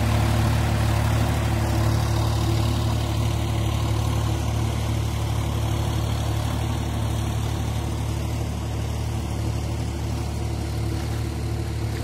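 Sonalika DI 47 4x4 tractor's diesel engine running steadily while it drives a Shaktiman rotavator through a flooded paddy field, a constant low drone that fades slightly toward the end.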